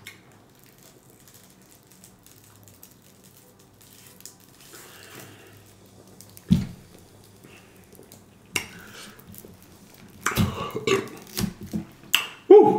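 Handling noises at a table: mostly quiet at first, then one sharp knock about six and a half seconds in, like a plastic water bottle being set down. A cluster of small clicks and knocks follows in the last few seconds, ending in a short throaty sound.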